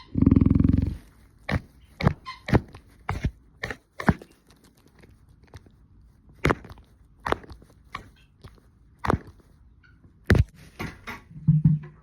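A heavy low thump, then irregular sharp taps and knocks, about a dozen, scattered unevenly, with two short low hums near the end.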